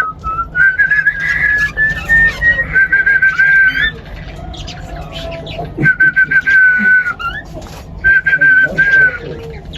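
Male cockatiel singing its whistled courtship song: four runs of warbling, trilled whistles with short pauses between them.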